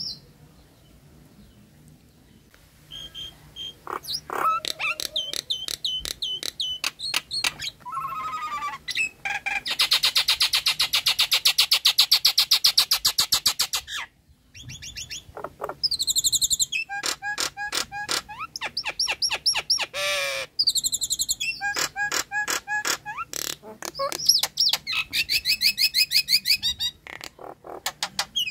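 Nias hill myna calling: runs of rapid repeated whistled and chattering notes, with a long fast trill about ten seconds in.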